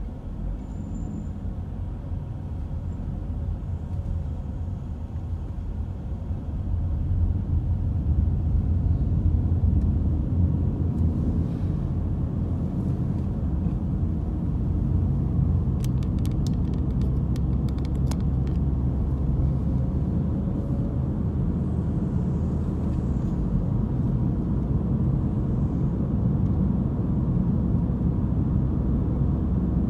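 Car cabin noise while driving: a steady low engine and road rumble that rises as the car picks up speed about seven seconds in and then holds. A few faint clicks come about halfway through.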